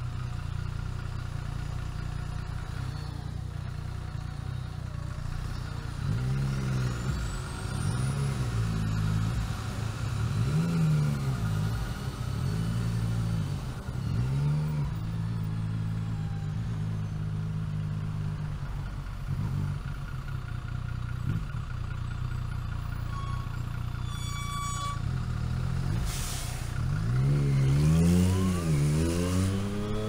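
Motorcycle engine ticking over steadily, then pulling away with the revs rising and dropping again and again as it shifts up through the gears. It settles into a steady run, then climbs in revs again near the end.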